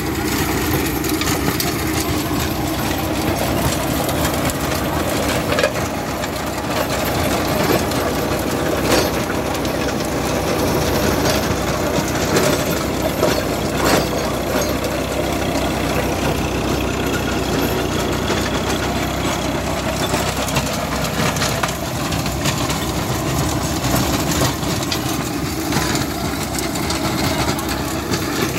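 John Deere 3028EN compact tractor's three-cylinder diesel engine running steadily under load while its PTO drives a rear-mounted Greensystem RT6012 rotavator, the spinning blades churning through dry soil. A few sharp knocks stand out over the steady noise.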